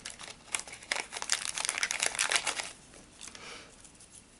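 Clear plastic packet crinkling and rustling in the hands as small wooden veneer shapes are taken out of it; the crackling is dense for the first two and a half seconds, then dies down.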